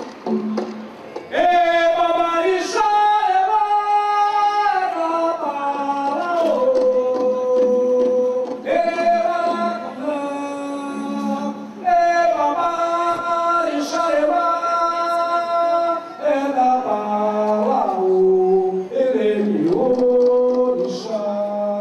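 A man singing a slow ritual chant in long held notes that step from pitch to pitch, with a lower sustained tone beneath.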